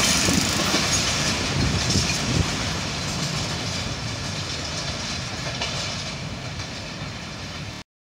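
Passenger train coaches rolling along the track as the train moves away, the sound fading steadily, then cutting off suddenly near the end.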